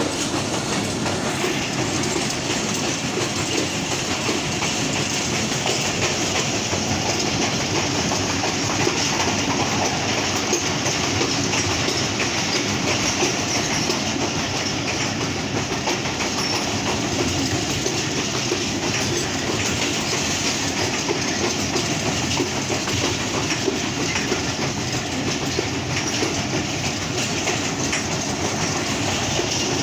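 Passenger train running steadily at speed, heard from on board: continuous noise of the wheels and carriage on the rails.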